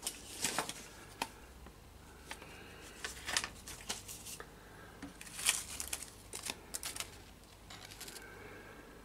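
Handling noise: irregular bursts of rustling and scuffing with small clicks and knocks, loudest about half a second in and again around five and a half seconds in.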